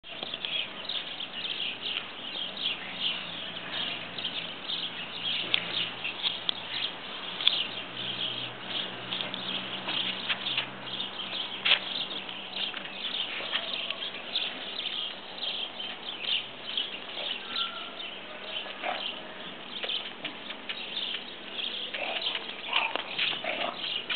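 Small birds chirping busily, many short high chirps overlapping several times a second, with a faint low hum underneath that fades out about halfway through.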